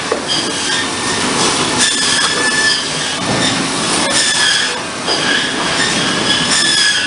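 Cedar shake mill machinery running loudly: a dense mechanical din from saws and conveyors, with high squealing tones that come and go.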